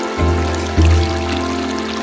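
Calm relaxation music with sustained held notes and a bass note changing twice, over the gurgling trickle of flowing water.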